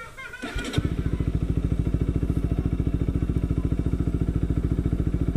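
Kawasaki RS200's single-cylinder engine with an Akrapovic M1 slip-on exhaust starting up under the starter about half a second in, then settling into a steady, even idle.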